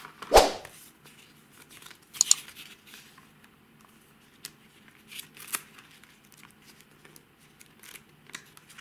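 Paper leaflets and a cardboard box being handled: a sharp thump about half a second in, then scattered light rustling, crinkling and taps as the folded paper is unfolded.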